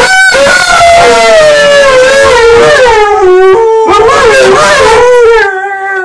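An Alaskan Malamute and a second dog howling together in long, overlapping howls that bend up and down in pitch, with a short break about three and a half seconds in and a tail-off near the end.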